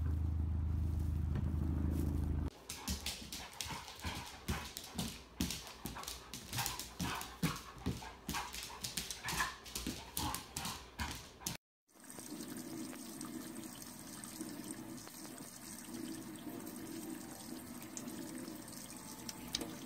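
A low steady rumble for about two seconds, then rapid clicking and scrabbling of a dog's claws on a tiled floor as it spins around. About halfway through this gives way to a steady stream of water running from a kitchen tap into a sink.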